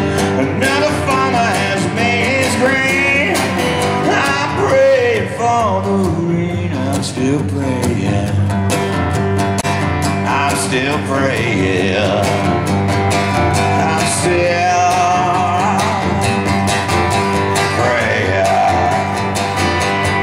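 Live solo song: a strummed guitar playing steadily, with a man's singing voice over it at times.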